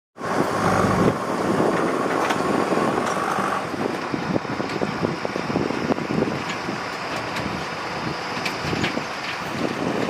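Tata 2518 tipper truck's diesel engine running as the truck drives over a dirt track, with a steady higher whine for the first three and a half seconds.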